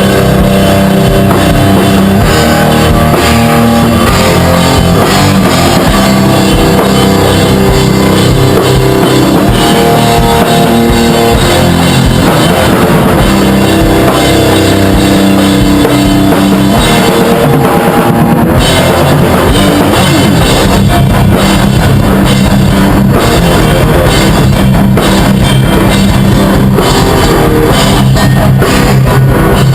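Loud rock music played by a band: drum kit and guitar, with cymbals growing busier in the second half.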